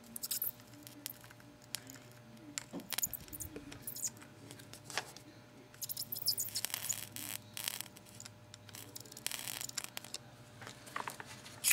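Soldering iron tip drag-soldering the pins of a TSOP-44 SRAM chip, fed with solder wire: faint scratchy clicks and scrapes of the tip on the leads, with a steady low hum underneath.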